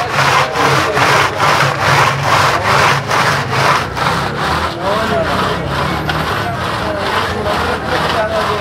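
Metal ice-cream pot spun back and forth by hand in a bed of crushed ice, grinding and scraping against the ice in a steady rhythm of about three strokes a second: the churning that freezes sheer yakh, Afghan hand-made ice cream.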